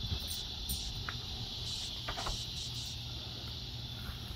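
Steady high-pitched chorus of insects such as crickets, with a low rumble underneath and a few faint ticks about a second and two seconds in.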